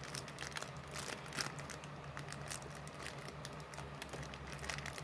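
Faint small clicks and crinkles of plastic packaging being picked at with the fingers, trying to work it open. The packaging is stubborn and won't give.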